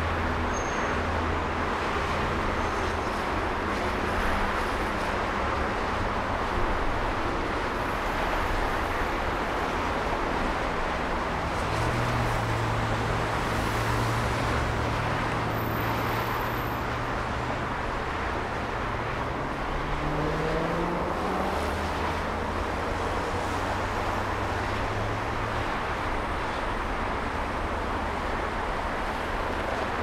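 Steady traffic noise from a busy multi-lane freeway, with many cars passing at speed. About twenty seconds in, one engine's note rises in pitch.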